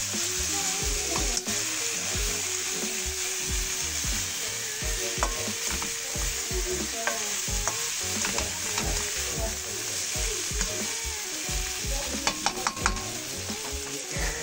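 Fried tofu cubes with onion and chili sizzling in a hot non-stick wok while a spatula stirs and tosses them, with scattered clicks and scrapes of the spatula against the pan.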